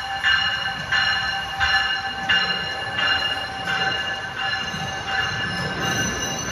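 NJ Transit bilevel cab-car train pulling into the station, its bell ringing steadily at about one and a half strikes a second over the rumble of the wheels.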